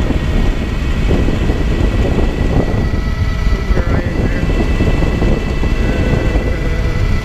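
Wind buffeting the microphone while riding a 2009 Zero MX electric motorcycle at speed, with a steady high whine from its electric drive underneath.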